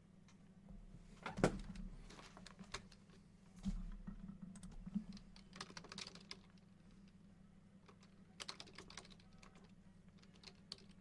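Computer keyboard typing: irregular runs of key clicks with pauses between them.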